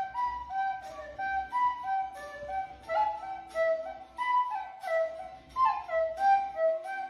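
Background music: a light, bouncy flute melody of short notes over soft percussion ticks.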